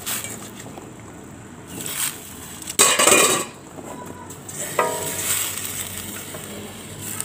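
Thin coconut milk with pieces of young breadfruit boiling in a metal pot, a steady bubbling. A brief loud clatter of cookware comes about three seconds in.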